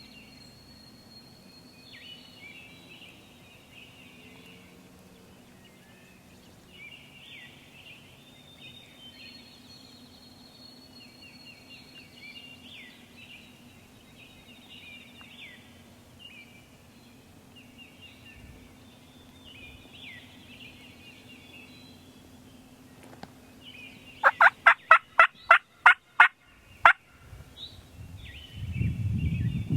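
Wild turkeys gobbling repeatedly at a distance. About 24 s in comes a close, loud run of about nine turkey yelps over roughly three seconds. A low rumbling noise starts near the end.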